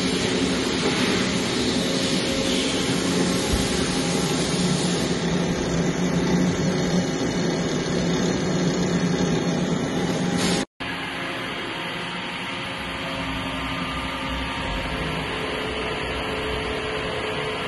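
HNK VTC-20/25 CNC vertical lathe running, a steady mechanical hum and hiss. It cuts out for a moment about eleven seconds in, then carries on a little quieter.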